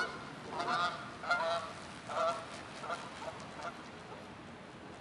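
Geese honking: a run of about seven short honks over nearly four seconds, growing fainter toward the end.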